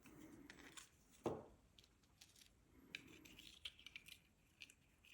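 Faint handling of small 3D-printed plastic headphone parts: light rubbing and scraping with scattered small clicks, and one sharper knock about a second in.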